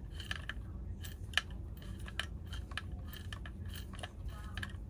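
Faint, irregular small clicks and taps of a hand tool turning the starter bolt and washer into the pulley of a chainsaw recoil starter, over a steady low hum.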